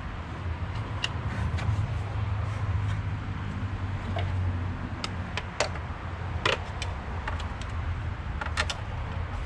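Scattered light metallic clicks and clinks of hand tools against parts in a car's engine bay, over a steady low hum.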